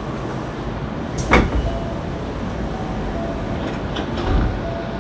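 Hankyu 7300 series electric train car running at speed: a steady rumble with faint steady tones and two sharp knocks, one about a second in and a weaker one near the end.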